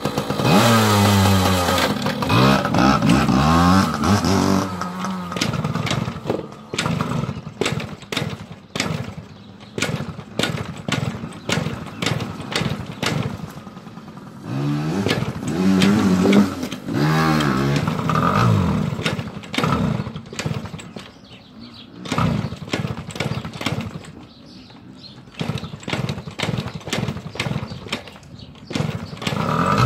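Motorcycle engine revving in several rising-and-falling bursts, with irregular sputtering pops between them, as a bike that won't start readily is coaxed into running.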